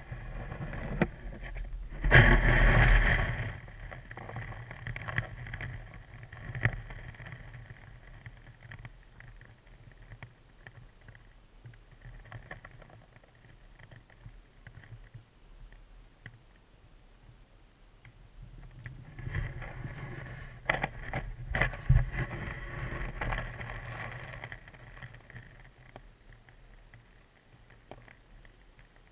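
Muffled water movement and handling noise picked up by a GoPro sealed in its waterproof housing, held underwater on a pole in a shallow stream. There is a loud rushing stretch about two seconds in and a longer, busier one around twenty seconds in, both with sharp knocks and clicks, and it is quieter in between.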